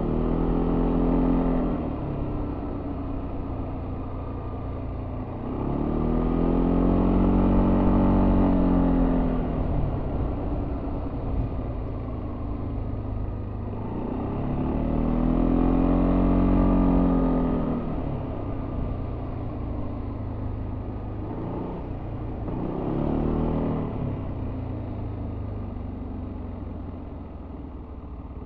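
Yamaha Tricity 300 scooter's 292 cc single-cylinder engine with its stock exhaust, heard from on board while riding. It swells under throttle four times, about a second in, around six seconds, around fifteen seconds and near twenty-three seconds, and settles back to a steadier drone between.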